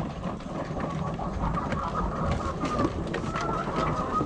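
A flock of laying hens murmuring and clucking, with a steady, wavering high note and scattered small clicks over a low rumble.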